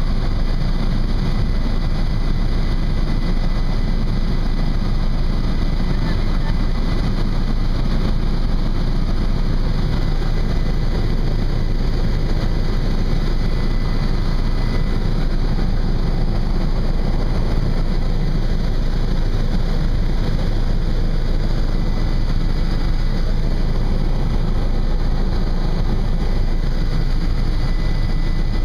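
Helicopter engine and rotor noise heard from inside the cabin in flight, loud and steady, with a faint high whine running through it.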